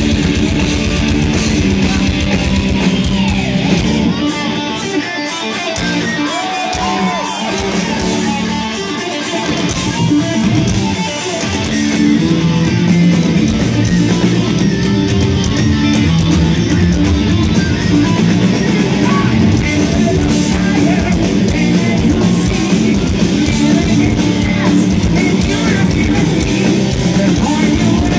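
Power metal band playing live through a PA, recorded from the audience: distorted electric guitars over a driving drum kit. The band grows fuller and louder about twelve seconds in.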